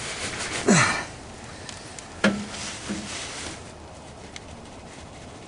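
A man's straining grunts and breaths while he forces an open-end wrench on a very tight 5/16 bolt in a car's rear differential, with a sharp metallic click a little over two seconds in.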